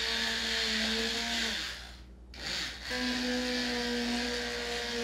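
Hand-held immersion (stick) blender running in a stainless steel pot, whipping oil and water into a thick emulsified lotion. The motor runs with a steady pitch, stops briefly about two seconds in, then starts again.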